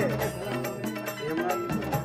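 Music with a steady percussion beat over held notes.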